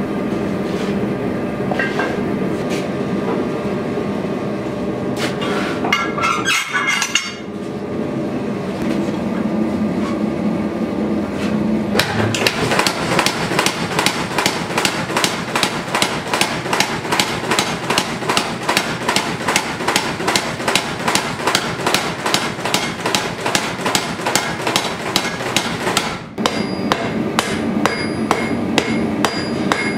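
Mechanical power hammer pounding a red-hot sword blade in a rapid, even rhythm of several blows a second, over the steady hum of the running machine. Before that there are only a few scattered knocks. Near the end, after a short break, hand-hammer blows strike the blade on the anvil.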